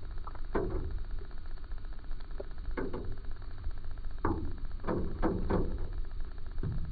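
About six short knocks, scattered irregularly, over a steady low rumble.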